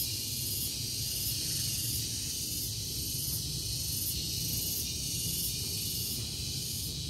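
Steady, high-pitched drone of insects, its top swelling in even pulses about one and a half times a second, over a low background rumble.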